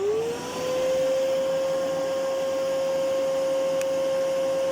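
Hoover Whirlwind vacuum cleaner motor spinning up, its whine rising in pitch and settling within about a second into a steady running hum. A strong steady tone sits in it, which the owner measures at about 530 Hz and takes for a resonant frequency.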